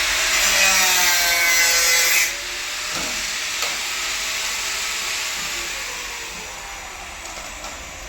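A power tool cutting or grinding loudly, its pitch sinking under load. The cutting noise stops abruptly about two seconds in, and the motor's whine then falls away slowly as it winds down.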